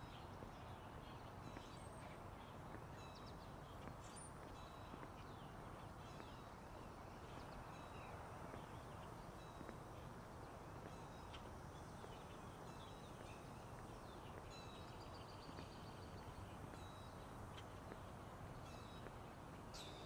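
Faint outdoor ambience: small birds chirping and calling on and off over a steady low background hum.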